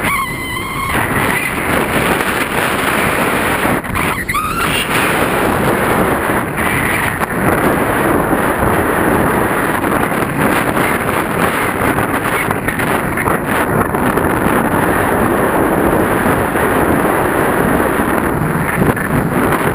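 Steady airflow rushing over the camera microphone in paraglider flight, loud and even, with a short wavering tone about four seconds in.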